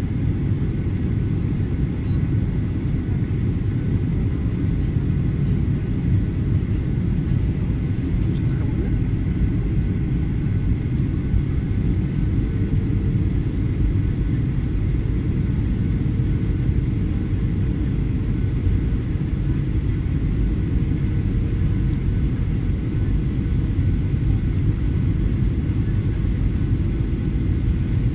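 Steady cabin noise of a jet airliner on approach to land: the turbofan engines and rushing air heard from inside the cabin as a low, even rumble. A faint steady tone comes in about halfway through.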